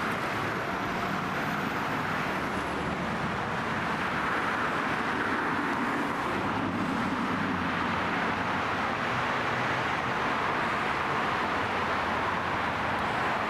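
Steady road traffic noise: cars and light trucks passing on a multi-lane road, their tyre and engine sounds blending into a continuous hiss.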